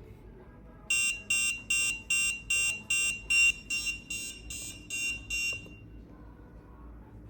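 The buzzer of a homemade proximity alarm beeps about twelve times, roughly two and a half beeps a second, at one high pitch, starting about a second in and stopping after nearly five seconds: the alarm has been set off by something too close to its ultrasonic sensor.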